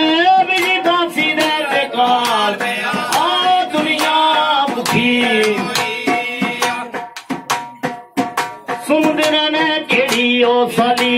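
Two dhol drums beating a fast, driving rhythm under a man singing a devotional folk song into a microphone. The singing breaks off for about two seconds past the middle, leaving the drums alone, then comes back.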